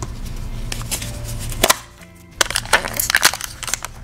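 Hands handling hard plastic toy pieces and a small plastic tub of modeling dough: a low handling rumble, one sharp click a little under halfway through, then a run of quick clicks and crackles in the second half.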